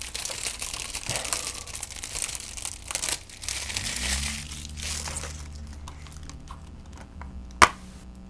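Plastic shrink wrap crinkling and tearing as it is pulled off a Blu-ray case, dying down after about three and a half seconds, then a single sharp click near the end.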